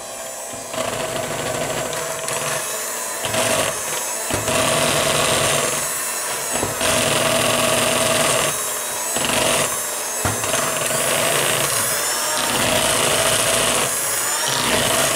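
Electric hand mixer running steadily, its beaters churning through thick cake batter as the last of the flour mixture and milk are blended in. The motor's tone holds while the churning sound shifts every second or two as the beaters move around the bowl.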